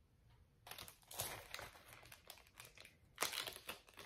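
Packaging being handled and crinkled, in irregular crackly bursts that start about two-thirds of a second in and are loudest about a second in and again about three seconds in.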